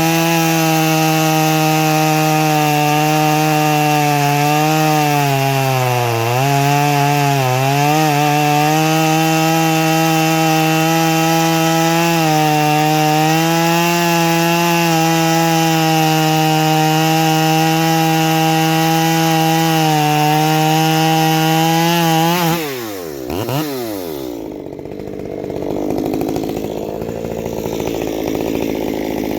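Ported Stihl MS 194 T two-stroke chainsaw held at full throttle, its pitch steady apart from brief dips about five to eight seconds in. Near the end the throttle is let off and the revs fall away quickly to a quieter running sound.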